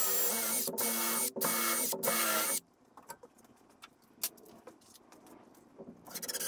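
Milwaukee M12 cordless drill pre-drilling pilot holes in wood, run in four quick trigger bursts over the first two and a half seconds. After a stretch of small handling clicks, a short burst from a Milwaukee M12 cordless impact driver driving a screw comes near the end.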